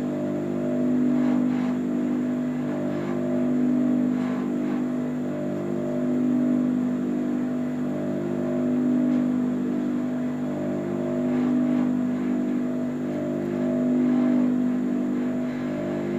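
Juki industrial sewing machine's motor running with a steady hum that swells and fades slowly about every two and a half seconds.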